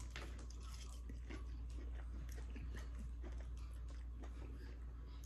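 A person chewing a batter-fried shrimp: a steady run of small, crisp crunches.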